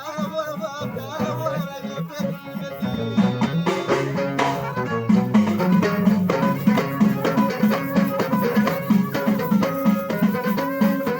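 Live folk music: a wavering melody line over drums and percussion. The drums settle into a steady, driving beat and the music gets louder a few seconds in.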